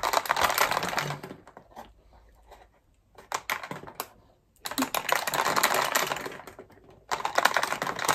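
Beads being poured into a cardboard rain-stick tube, rattling down against the lolly sticks pushed through it: dense, fast clicking that comes in several pours with short gaps between.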